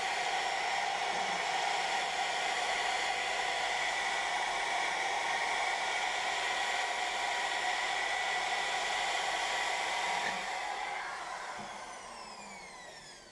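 Lathe spinning a pine workpiece with a rotary sander held against it, a steady whirring hiss. About ten seconds in it winds down, its pitch falling as it coasts to a stop.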